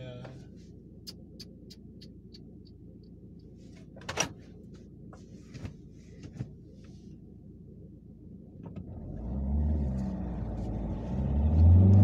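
Ford Connect 1.8 engine heard from inside the cabin, idling low with a few light clicks and one sharper click about four seconds in. About nine seconds in the car pulls away and the engine's revs rise twice, getting louder as it accelerates.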